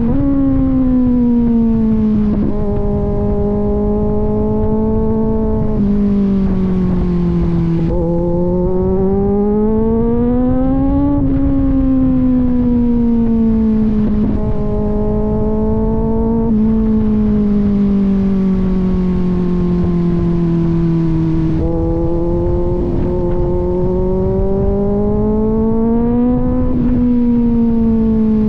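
Kawasaki Z900 inline-four engine through an aftermarket AR exhaust, under way on the open road. Its note climbs and falls with the throttle over a few seconds at a time, with several sudden drops in pitch as it shifts gear.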